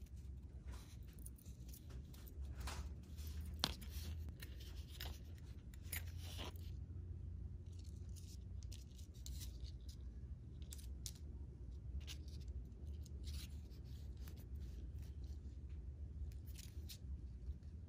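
Fingers handling and tying nylon monofilament fishing line around a small metal swivel: faint scattered clicks, rubs and scrapes of line against skin and metal, over a low steady hum.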